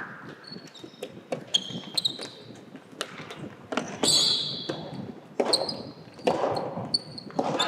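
Soft tennis play on an indoor court: sharp hits and ball bounces, with several high sneaker squeaks on the court floor, echoing in a large hall.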